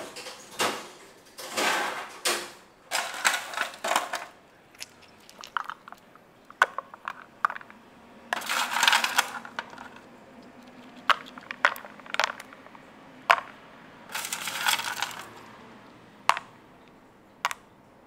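Ice cubes rattling in a plastic container and dropping into a stainless-steel tumbler of milky coffee. There are sharp single clinks mixed with a few longer rattles, about a second each.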